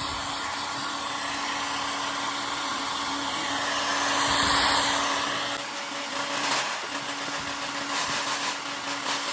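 Handheld hot-air blower running steadily, warming a decal on dirt-bike plastic to loosen its adhesive for peeling. The sound shifts and gets a little quieter a little under six seconds in.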